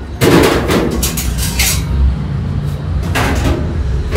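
Knocks and clatter of a kitchen oven being set up, its door and metal parts banging shut and rattling, with a loud knock just after the start, a run of clatter about a second in and another knock near three seconds. A steady low hum runs underneath.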